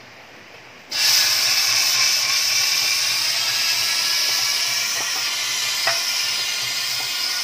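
Compressed air blasting into a split half-inch garden hose pushed down a generator's fuel tank, a loud steady hiss that starts about a second in. The air jet through the split sucks sand and rust up out of the tank.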